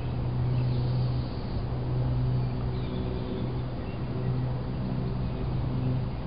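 Single-engine Cessna 172SP's piston engine and propeller droning steadily at a distance, swelling and easing a little, with a few faint bird chirps.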